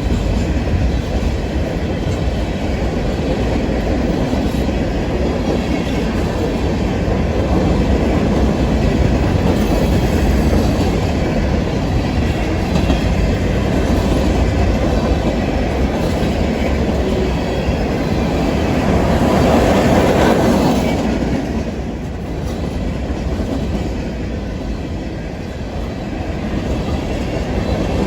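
Freight train cars rolling past with a steady rumble and wheel clatter on the rails, swelling loudest about two-thirds of the way through.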